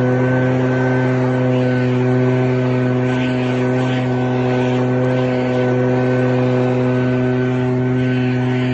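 Two-stroke gas leaf blower running at a steady throttle: an even engine drone with a rush of air over it.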